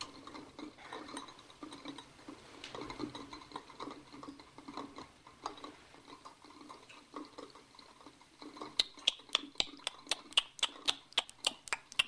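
Quiet clatter of coffee cups and glass coffee carafes being handled, then a quick run of about fifteen sharp clinks over the last three seconds, the loudest part.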